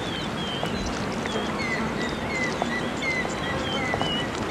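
Wildlife ambience: short high chirping calls, about two or three a second, some falling and some rising in pitch, over a steady hiss with a few faint clicks.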